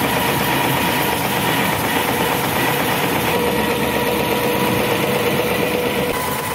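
A wooden fishing launch's engine running steadily under way, an even hum over the rush and splash of the bow wave along the hull.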